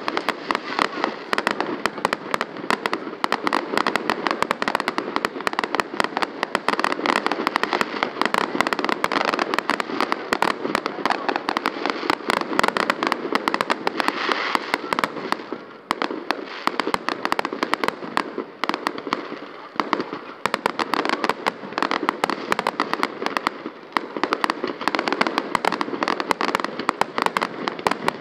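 Fireworks display: aerial shells bursting in a dense, continuous barrage of bangs and crackle, easing briefly about halfway through.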